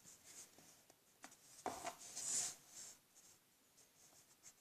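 Faint rustling and handling of paper documents, pages of a motherboard quick start guide and manual, with a couple of light taps about a second and a half in and a soft swish of paper a little later.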